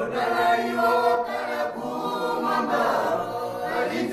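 A choir singing unaccompanied, several voices holding sustained notes together in harmony.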